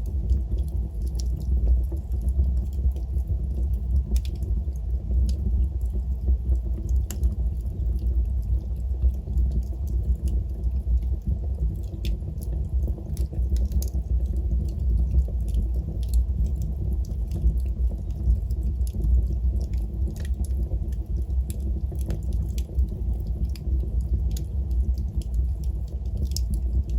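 Wood fire burning with a steady low rumble and frequent, irregular sharp crackles and pops.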